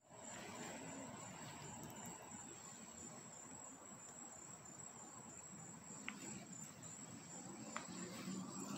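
Crickets chirping: a faint, steady, high-pitched pulsing trill over quiet outdoor hiss, with a couple of soft ticks near the end.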